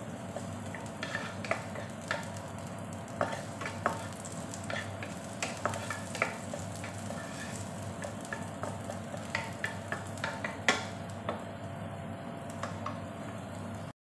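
Ginger pieces sizzling in oil in a nonstick wok, stirred with a wooden spatula that taps and scrapes against the pan, with one sharper knock about ten and a half seconds in. The sound cuts off suddenly at the end.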